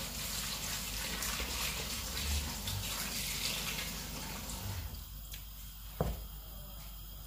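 Water running from a kitchen tap into a steel bowl of broccoli florets, stopping about five seconds in. A single sharp knock about a second later.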